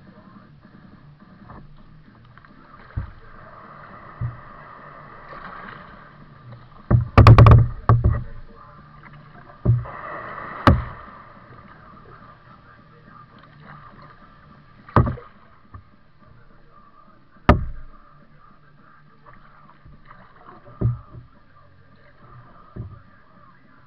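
Kayak paddling: paddle strokes make irregular knocks and splashes on a plastic kayak, the loudest cluster about seven seconds in, over a faint steady background.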